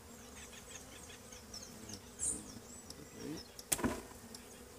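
Honeybees buzzing steadily around an opened hive, with one sharp knock about three and a half seconds in as a wooden hive frame is handled.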